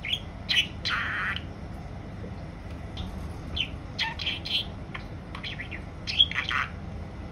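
Female budgerigar chattering in a string of short chirps and warbles, including a mimicked word that the owner captions as 'sausage'.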